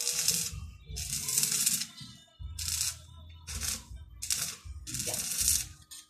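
Stick (arc) welding on steel square tubing: the electrode's arc crackling and hissing in short bursts of under a second, about six times, with brief breaks between them.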